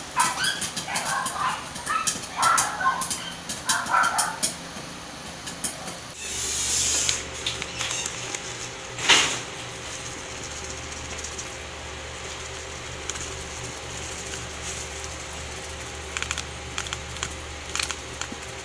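A dog barking repeatedly over a run of quick clicks for the first few seconds. Then a short rustling hiss as a paper packet is emptied over a steel pot of popcorn, one sharp knock, and a steady low hum with faint scattered clicks.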